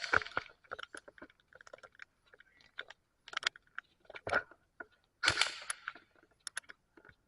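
Airsoft guns firing short bursts of shots, with scattered clicks and knocks between. The loudest burst comes about five seconds in.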